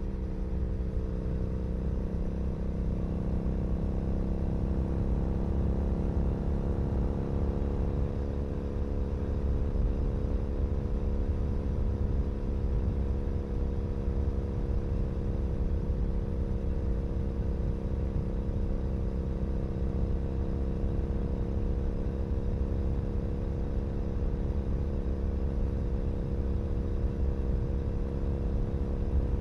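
2012 Triumph Bonneville SE's parallel-twin engine running through a British Customs Predator aftermarket exhaust, recorded close to the exhaust while riding. Engine speed rises slightly over the first several seconds, then holds at a steady cruise.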